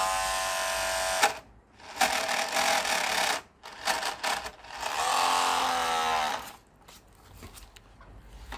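Small electric motor of a solar-powered model boat whining as it runs off the solar panel. The motor cuts out about a second in, runs again briefly, then spins up once more around five seconds and winds down in pitch, followed by a few light handling clicks.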